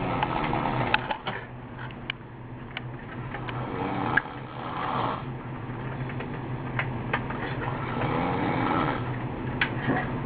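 A person snoring: two long snores about four seconds apart, over a steady low hum, with a few faint clicks.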